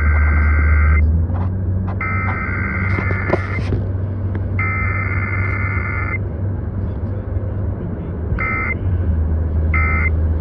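Emergency Alert System SAME data bursts played over the radio: three long rasping two-tone header bursts with short gaps between them, then, after a pause, two short end-of-message bursts near the end. A steady low car rumble runs underneath.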